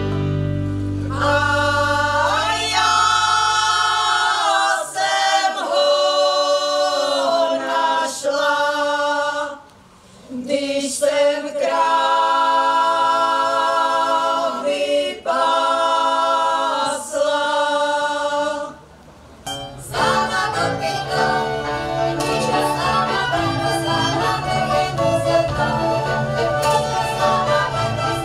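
Women's folk choir singing unaccompanied in several voices. The song runs in phrases with short breaks about ten seconds in and again near nineteen seconds. About twenty seconds in it gives way to folk dance music with a steady bass and beat.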